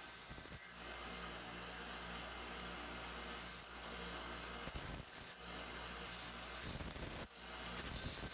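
Belt sander running, with a short piece of steel coat-hanger wire being ground to a point against the belt. The grinding noise dips briefly a few times as the wire comes off the belt.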